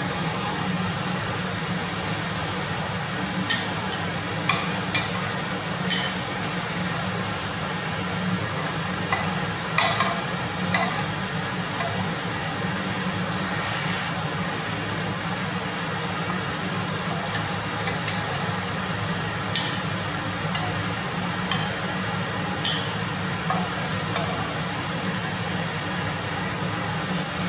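A utensil clinking and tapping against a frying pan and a ceramic plate as seared scallops are lifted from the pan onto the plate, about a dozen light clicks spread through. A steady hiss and low hum run underneath.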